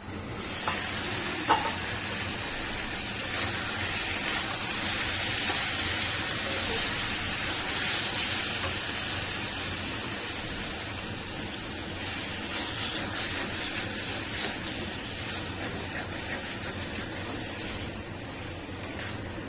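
Steady sizzling of food frying in hot oil in a pan, easing off a little toward the end, with a few faint clicks.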